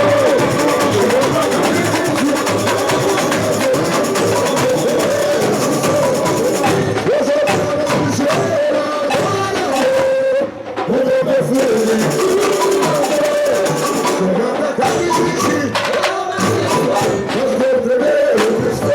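Samba school bateria playing a samba, with dense drum and rattle percussion and voices singing over it. The sound drops out briefly about halfway through, then comes back in.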